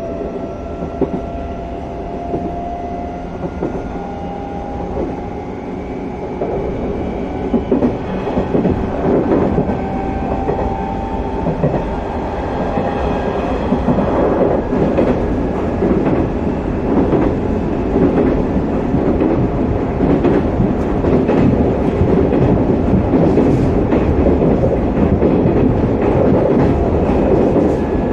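Hanshin 1000 series electric train heard from inside a motor car while running between stations: a thin traction-motor whine slowly rises in pitch over the first dozen seconds. The wheel and rail rumble then grows louder, with the clickety-clack of wheels over rail joints.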